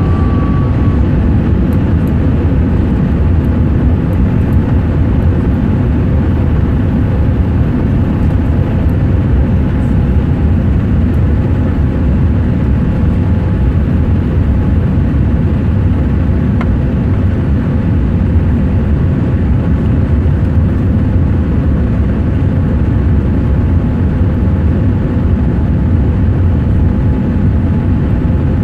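Boeing 787 Dreamliner's twin jet engines and airflow heard from inside the passenger cabin during the takeoff climb-out: a loud, steady rush of noise, heaviest in the low range, with a faint steady hum under it.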